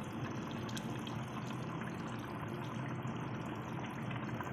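Chicken curry simmering in a large steel pot: a steady bubbling hiss with faint small pops, the chicken nearly cooked.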